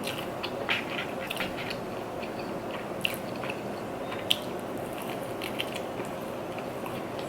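A person chewing food close to the microphone, with wet mouth sounds and scattered short clicks, a sharper click about four seconds in.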